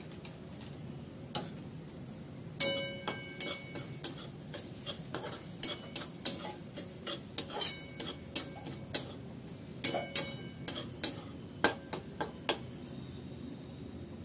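Spatula scraping and knocking against a metal kadhai while stirring onions fried with spices, a string of irregular strokes that starts a couple of seconds in and stops near the end. Some harder knocks leave the pan ringing briefly, over a faint steady sizzle.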